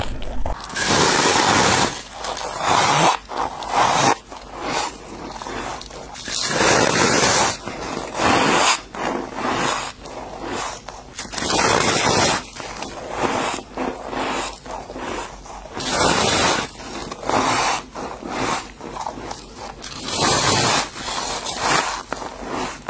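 Close-miked bites into freezer frost and shaved ice, a run of squeaky crunches about one a second.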